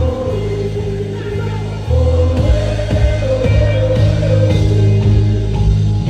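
Live Afrobeats concert music over a big stage sound system: a heavy bass beat with a sung vocal melody on top. The bass drops out briefly and comes back in full about two seconds in.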